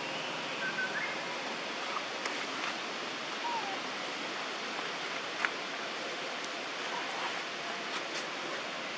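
Steady outdoor background hiss, with a few faint short chirps and a single sharp click about five and a half seconds in.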